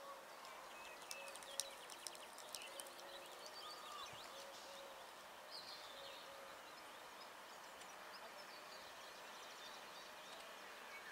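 Faint birdsong over quiet outdoor background hiss: scattered short chirps and trills, busiest in the first few seconds.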